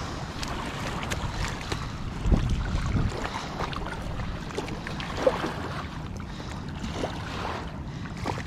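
Wind buffeting the microphone over river water lapping at the bank, with a stronger low rush of wind about two seconds in. Small clicks and rustles come from hands handling a barbel in a mesh landing net.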